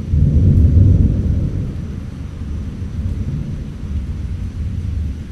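Rolling thunder rumbling, loudest in the first second or so and then slowly fading.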